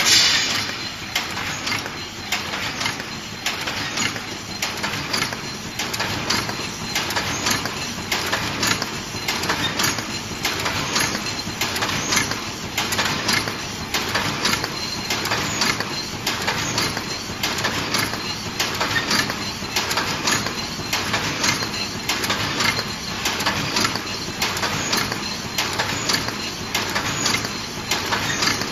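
Paper cup making machine running at production speed, about 52 cups a minute, its rotary turrets and cup-counting stacker making a steady, even rhythm of mechanical clicks and clatter. A louder knock comes right at the start.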